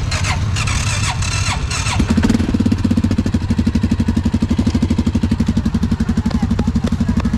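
Can-Am ATV engine running, busier and noisier for the first two seconds, then settling into a steady, rhythmic idle with an even low pulse.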